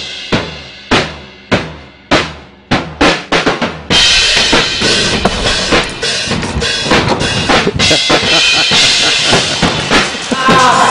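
Drum kit playing: single accented hits about half a second apart, coming faster, then breaking into a full, busy beat about four seconds in.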